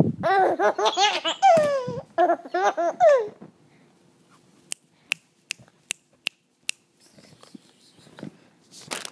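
A baby laughing in a quick run of high, pitched pulses for about three seconds, ending on a falling note. Then six sharp clicks, evenly spaced about two to three a second, and faint rustling near the end.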